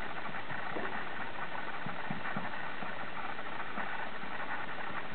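A dog reverse sneezing: a steady run of rapid, snore-like inhalations through the nose that goes on without a break. The sound comes from a spasm of the throat muscles, set off by irritation of the lining of the throat above the soft palate.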